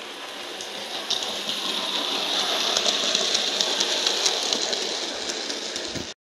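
00 gauge model train, a Hornby Ruston shunter hauling small four-wheel coaches, running along the track: a steady whirring rattle of motor and wheels on the rails with light clicks over the track joints. It grows louder as the train passes close by, then eases off near the end.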